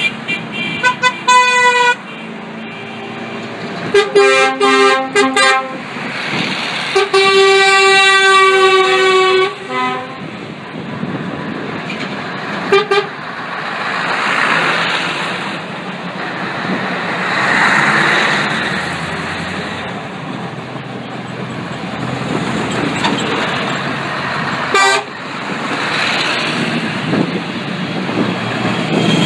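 Truck horns sounding in a series of short toots, then one long blast of about two and a half seconds. After that, heavy trucks pass one after another, their engine and tyre noise swelling and fading as each goes by.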